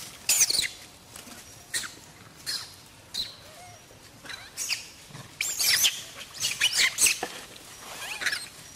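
Macaques screaming: short, high, wavering squeals repeated many times, the loudest run of them about two-thirds of the way through.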